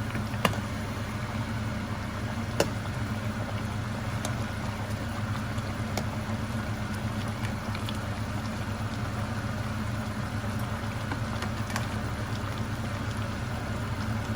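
Pot of soup boiling on the stove: a steady low rumble with a few sharp pops scattered through it.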